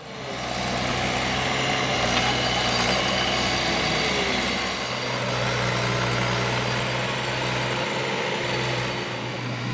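Kubota mini excavator's diesel engine running steadily, a constant low hum with a slight dip about halfway through.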